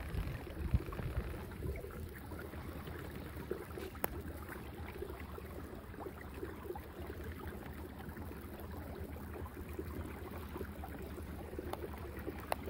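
A kayak's small motor running steadily at low speed, a constant low hum, with water washing along the hull and a faint click about four seconds in.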